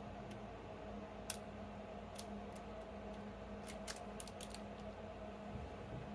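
Lock pick and tension wrench working the pin stack of an ABUS 72/40 brass padlock: small, irregular metallic clicks and ticks as pins are set, with a cluster of quick clicks about two thirds of the way in.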